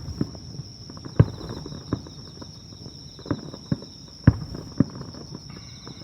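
Fireworks bursting at a distance: a quick, irregular series of booms and cracks, each with a short low rumble, the loudest about a second in and again just past four seconds.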